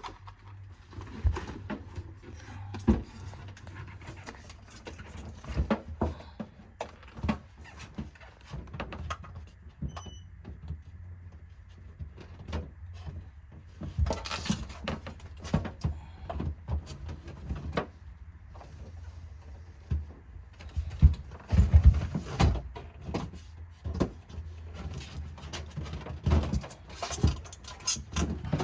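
Irregular taps, knocks and rustles of a butyl-rubber sound deadener mat with aluminium facing being handled and pressed onto the car's sheet-metal body, with a cluster of heavier thumps past the middle, over a low steady hum.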